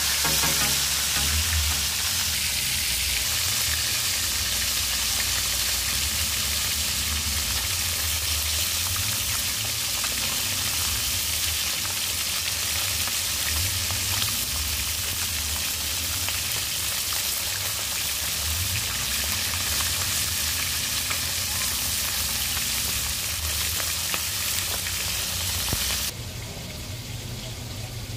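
Whole fish frying in a wok of hot oil, the oil sizzling with a steady hiss. Near the end it drops away suddenly to a quieter background.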